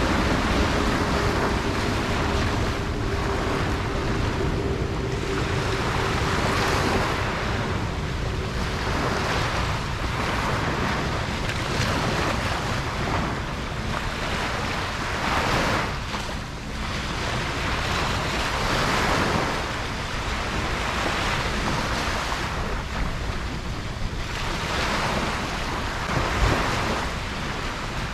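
Ocean surf on a beach, waves breaking and washing in with a swell every few seconds, over a low rumble of wind on the microphone. A faint steady hum sounds under the surf for the first several seconds.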